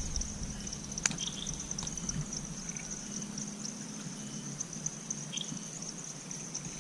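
Steady high-pitched evening insect chorus, a continuous chirring with a faint flutter. A single sharp click comes about a second in, and a few faint short chirps are heard.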